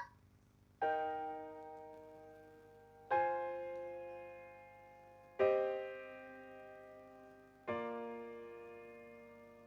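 Piano playing four slow, held chords about two seconds apart, each struck and left to ring out and fade.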